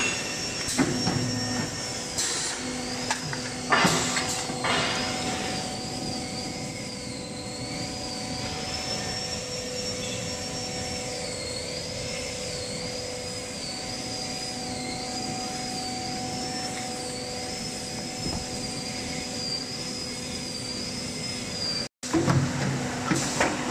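Core veneer patching machine running with a steady hum and a high, wavering whine. Its punch head knocks sharply a few times in the first four seconds and again just after a brief dropout near the end.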